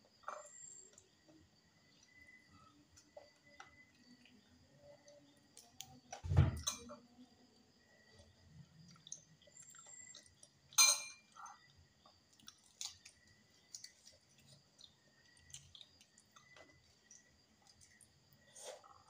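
Quiet eating sounds: soft chewing and mouth clicks while balut eggs are eaten. There is a heavier thump about six seconds in and a sharp click near eleven seconds, over faint steady high tones.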